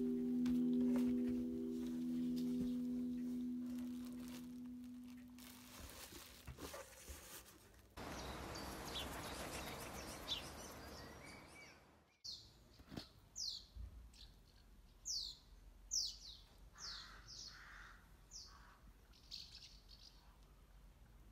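A singing-bowl-like ringing tone fades out over the first few seconds, followed by soft outdoor ambience with a few faint bird chirps. From about twelve seconds in, swifts flying overhead give about ten shrill, downward-sliding screams.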